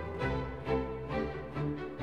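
Background music: a melody of sustained notes that change every half second or so.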